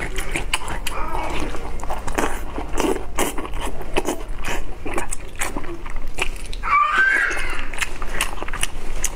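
Close-miked mouth sounds of biting and chewing braised intestine with lettuce: repeated wet, sticky smacks and crunchy clicks. A brief high gliding sound comes in the background about seven seconds in.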